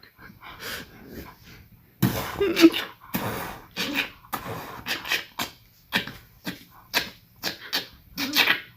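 A dog making a rapid series of short, rough vocal sounds, about two a second, after a quieter start.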